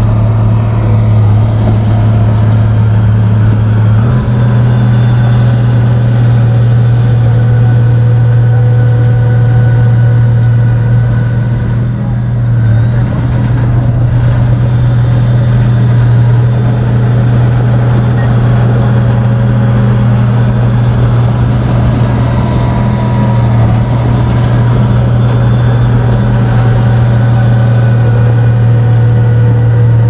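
Komatsu bulldozer's diesel engine running steadily and loudly with a deep, even hum; its pitch shifts slightly about four seconds in and the level dips briefly about twelve seconds in.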